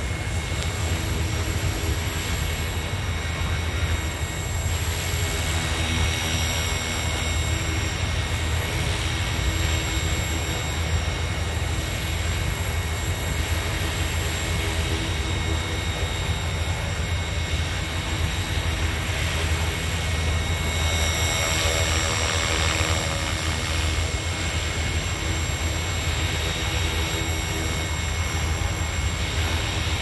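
Radio-controlled helicopter hovering, its main rotor and motor running steadily: a low drone with a steady high whine over it.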